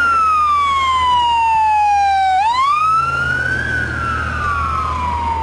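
Emergency vehicle siren wailing: its pitch falls slowly, climbs quickly about two and a half seconds in, then falls slowly again.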